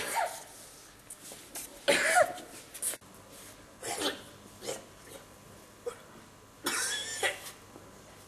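A run of sneezes: about seven short bursts at uneven gaps, with the longest near the end.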